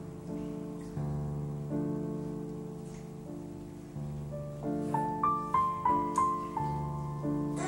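Soft background piano music: slow, sustained chords, with a melody of quicker single higher notes coming in about halfway through.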